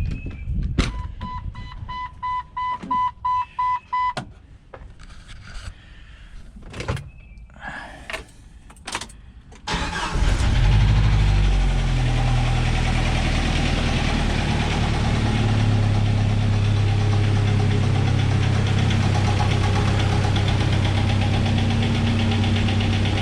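Clicks and a repeating beeping chime, then about ten seconds in a 1997 Jeep Wrangler TJ's 2.5-litre four-cylinder engine cranks, starts and runs steadily, with an engine knock that the owner blames on a failing engine.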